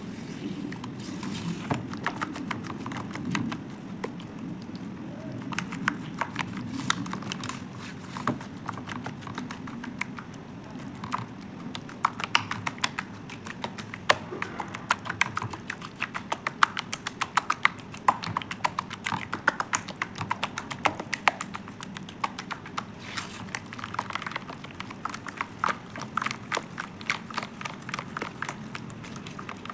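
A bare hand squeezing and kneading thick wet paste of coloured powder and sand in a metal bowl: sticky squelching with a steady stream of quick wet clicks and pops, getting busier about twelve seconds in.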